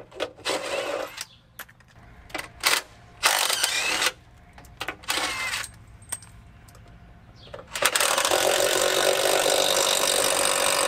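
DeWalt cordless impact wrench run in several short bursts, then running steadily for about three seconds near the end, spinning out a bolt already broken loose with a ratchet.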